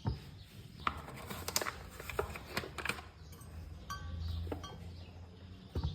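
Kitchen utensils and dishes clinking and knocking in scattered short hits, with a low hum underneath.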